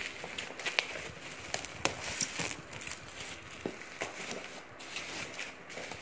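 Bubble wrap around a cardboard box rustling and crackling as it is gripped and pulled off, with irregular sharp crackles.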